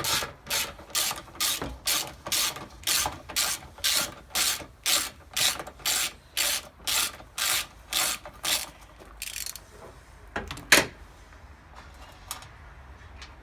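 Ratchet with a 10 mm socket undoing a bolt: quick back-and-forth swings, each giving a run of pawl clicks, about two a second for roughly nine seconds. After a short pause comes one sharp, loud click.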